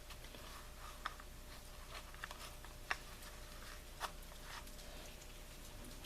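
Faint hand-work sounds on a chainsaw's recoil starter: light rustling and scattered small ticks, with three sharper clicks about one, three and four seconds in.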